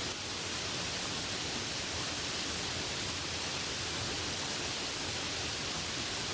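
Light rain falling steadily, an even hiss with no single drops standing out.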